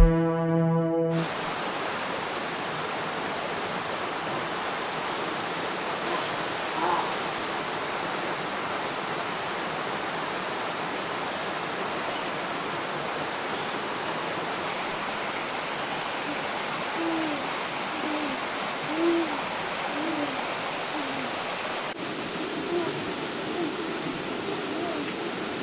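Title music cuts off about a second in, giving way to the steady rushing hiss of a river. In the second half a string of short low calls sounds over it.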